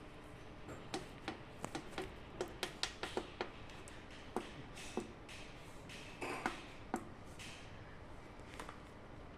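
Buttons on an industrial RF dryer's control panel being pressed, giving about fifteen short, irregular clicks and taps. Most come in the first seven seconds, then they thin out.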